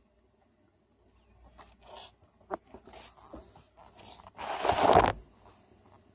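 Sniffling through the nose: a series of short, raspy sniffs, then a louder, longer one about four and a half seconds in.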